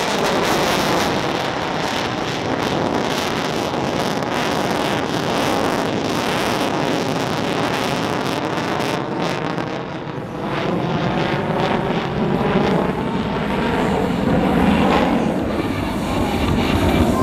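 F-22 Raptor's twin Pratt & Whitney F119 afterburning turbofans, loud jet noise with a sweeping, phasing tone as the jet climbs and turns overhead in afterburner. The noise dips briefly about ten seconds in, then swells again.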